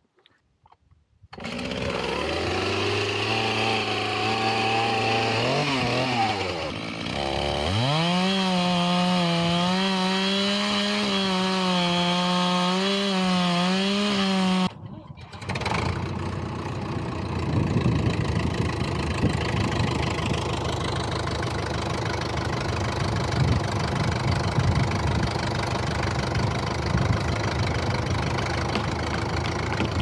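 A Stihl chainsaw's two-stroke engine starts up, dips and climbs in revs about six seconds in, then runs high with a wavering pitch until an abrupt cut near the middle. A lower, rougher diesel tractor engine then idles steadily.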